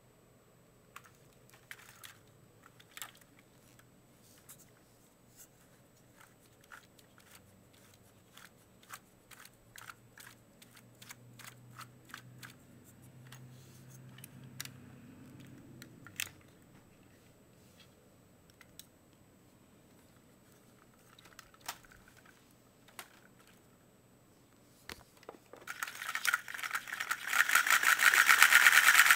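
Scattered light clicks and taps of plastic Lego Technic parts being handled. About three seconds before the end, the Lego model V-twin engine starts running, its pistons and gears making a fast, steady plastic clatter that grows louder over a couple of seconds.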